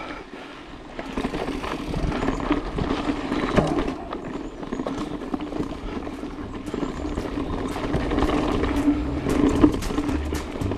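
Mountain bike rolling along a dirt singletrack: steady tyre noise on the dirt, with frequent clicks and rattles from the bike over the bumps.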